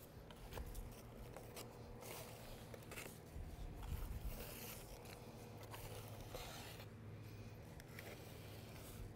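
Faint scraping strokes of a hand notched trowel dragged through liquid urethane coating on a board, spreading it out.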